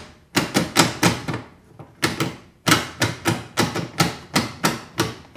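The hand-cranked destination roll sign of a 1940s PCC streetcar, turned by hand to change the destination, clicking sharply about three times a second. The clicking pauses briefly about a second and a half in, then picks up again.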